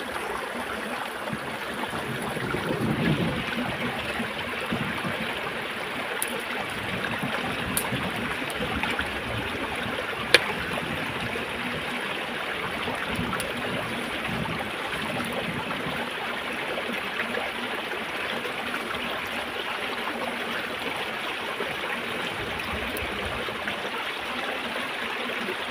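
Shallow rocky stream running steadily over stones, with one sharp click about ten seconds in.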